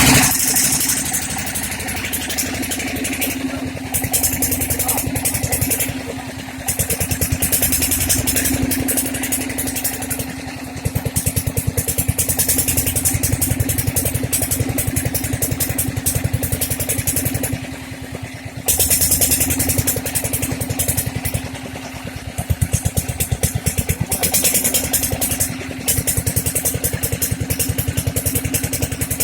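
Small single-cylinder 'dongpeng' diesel engine running steadily at a fast, even beat, as used to drive gold-mining equipment. Stretches of high hissing noise come and go over it every few seconds.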